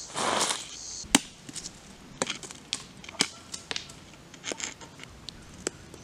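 A limping walk through dry leaf litter and twigs: a rustling crunch right at the start, then sharp twig snaps and cracks about once a second, one louder crack just after a second in.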